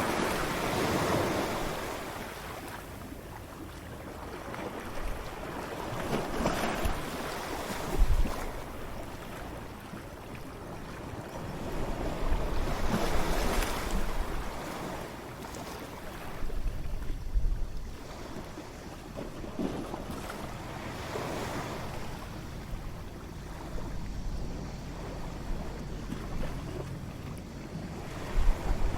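Ocean waves breaking on a shore, the surf swelling and falling back every five to seven seconds as each wave crashes and washes out.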